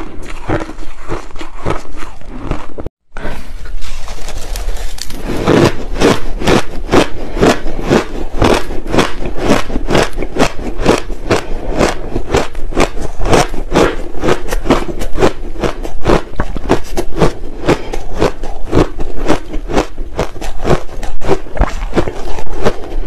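Crushed ice being chewed close to a clip-on microphone: loud, rapid crunching, several crunches a second, with a brief break about three seconds in.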